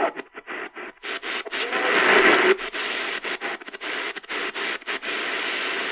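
Static hiss from a portable radio's speaker while it is tuned across the shortwave band, the noise cutting out and back in many times in quick succession, with a faint snatch of a station's voice about two seconds in.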